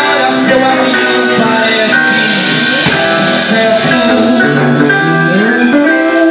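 A band playing, with guitar and singing.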